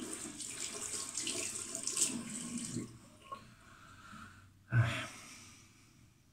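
Water running from a tap into a sink for about three seconds, then stopping. About five seconds in, one short loud thump.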